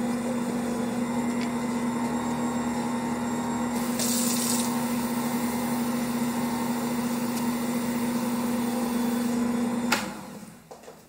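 Ankarsrum stand mixer running steadily, its motor turning the bowl as the dough roller kneads bread dough, with a steady hum. A short hiss comes about four seconds in, and the motor stops abruptly with a click near the end.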